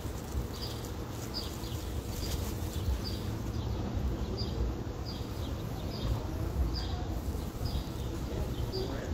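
A short, high chirp, each one falling slightly in pitch, repeated evenly about three times every two seconds over a steady low background rumble.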